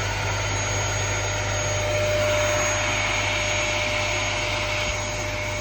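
Vacuum cleaner running steadily: an even rush of air with a constant whine, getting slightly quieter near the end.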